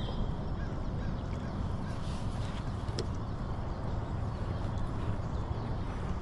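Kayak being tied off to a fallen log: a few light clicks from the mooring clamp and line being handled, over a steady low rumble.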